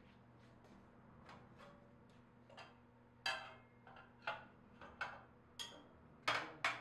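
A string of irregular sharp clicks and knocks over a faint steady hum, faint at first and louder from about three seconds in: a screwdriver and metal parts being handled while steel rods are screwed into aluminium columns.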